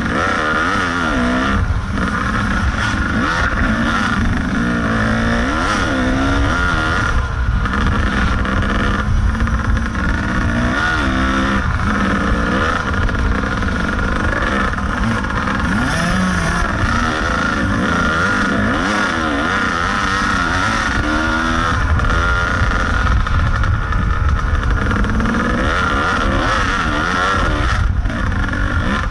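Kawasaki KDX 220 two-stroke dirt bike engine revving up and falling back again and again as the bike is ridden hard along a rough trail, with a steady low rumble underneath.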